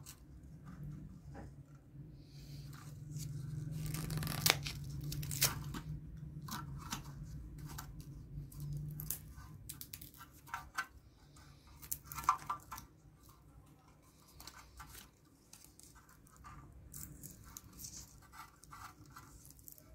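Fingers handling the heating element of an electric bakhoor burner, working its wire leads at the terminal screws on the element plate: scattered short scratches and clicks. A low steady hum sits under the first half.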